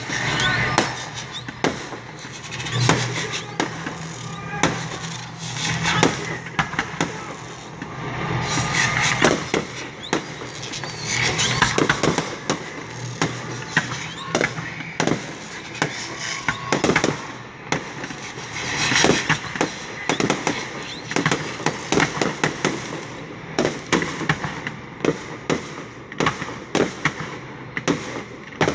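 Aerial firework shells bursting one after another in a dense barrage of sharp bangs and pops.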